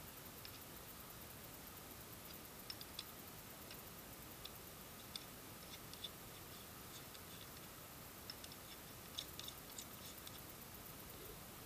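Small, irregular clicks and ticks from the parts of a Razer Seirēn X microphone stand being screwed together by hand, more frequent in the second half, over a faint steady hiss.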